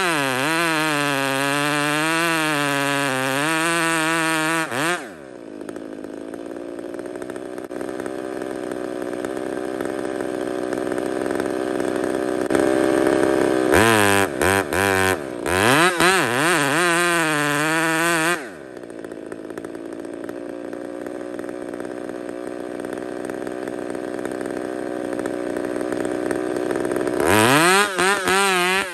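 Husqvarna 372XP two-stroke chainsaw cutting into a large tree trunk at full throttle, its pitch wavering as the chain loads in the cut. It eases off to a quieter run about 5 s in, revs up and cuts again from about 14 to 18 s, eases off again, and is back at full throttle near the end.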